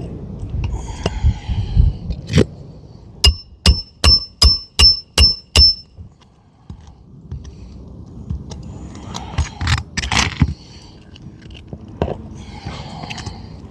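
Hammer driving a roofing nail into asphalt shingles: a quick run of about seven ringing metal strikes, some two and a half a second, a few seconds in, with softer scraping and handling sounds around them.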